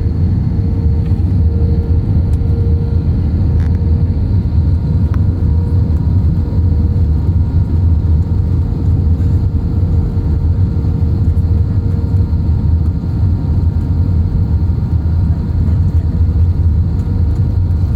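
Airliner cabin noise: the steady low rumble of jet engines and airflow, with faint constant whining tones over it.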